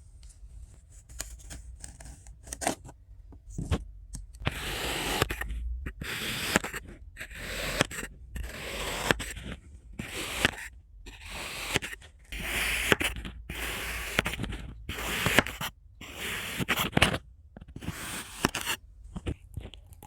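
A knife slicing through crunchy kinetic sand: a few light scrapes and taps, then about ten gritty cutting strokes of roughly a second each with short pauses between them.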